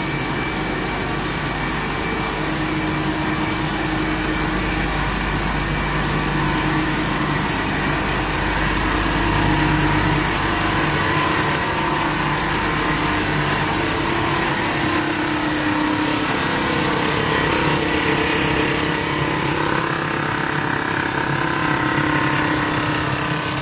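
Breathable PE film extrusion line running: steady factory machinery hum from motors and rollers, with several steady whining tones over a noisy rush. A low hum drops out about halfway through.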